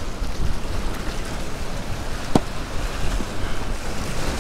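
Wind buffeting the microphone over surf washing against jetty rocks, a steady rushing noise, with one sharp click about two seconds in.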